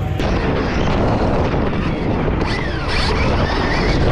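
Onboard sound of a Stark Varg electric dirt bike being ridden on a dirt track: a steady dense rush of wind and riding noise, with the electric motor's whine gliding up and down in pitch a few times in the middle.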